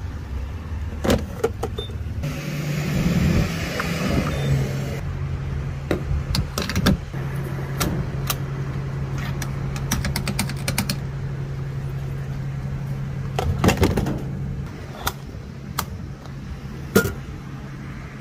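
Gas pump fuelling a car: a steady low hum that starts about two seconds in and stops about fourteen seconds in, with a rushing hiss for the first few seconds and scattered sharp clicks and knocks of the nozzle being handled.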